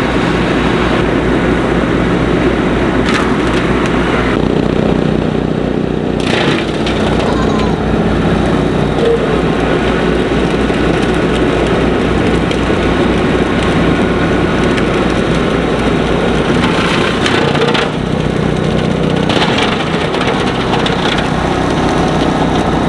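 Kubota tractor's diesel engine running steadily under load, driving a bush hog rotary cutter whose blades are spinning. A few short sharp cracks stand out above the drone.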